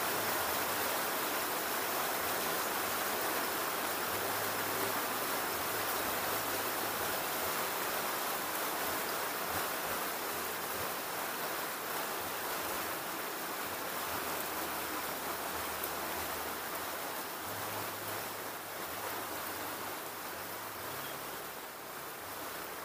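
Steady rain falling, an even hiss that eases slightly near the end.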